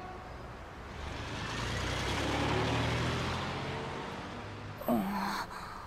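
A motor vehicle drives past, its engine noise swelling over the first few seconds and then fading away. Near the end there is a short, sharp sound that rises quickly in pitch.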